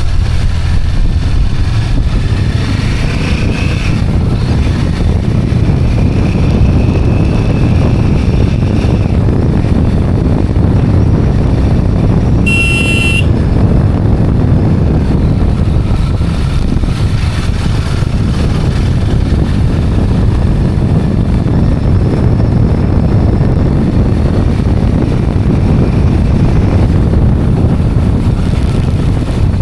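Steady rumble of wind and road noise on the microphone while riding a two-wheeler, with a short horn toot about halfway through.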